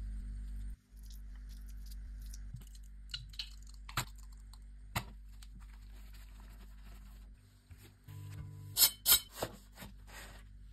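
Food-handling sounds of assembling a wrap over a low steady hum: soft taps and rustles as grilled peppers are spooned onto a flour tortilla and it is folded. About nine seconds in come a few loud, crisp crackles from the toasted tortilla wrap as it is handled.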